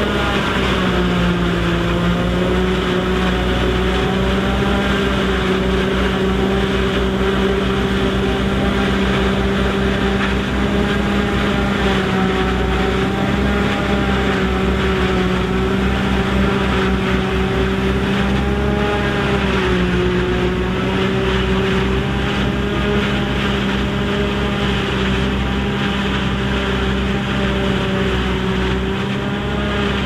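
Ford 5000's four-cylinder diesel engine running steadily under heavy load, driving a one-row forage harvester that is chopping corn for silage. The engine's pitch briefly sags about a second in and again around twenty seconds in.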